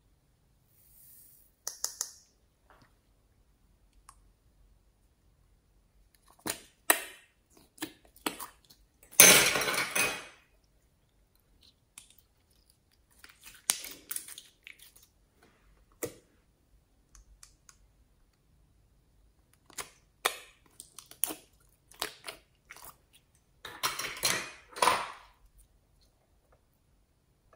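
Hands squishing and folding slime mixed with foam beads, giving a series of wet clicks, crackles and squelches with short quiet gaps between. The loudest is a longer squelching crackle about nine seconds in, with another run of crackles near the end.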